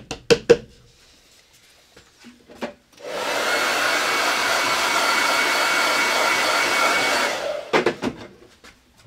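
Handheld hair dryer switched on for about four and a half seconds, a steady rush of blowing air with a faint whine, then switched off. A few sharp knocks come just before it starts and just after it stops.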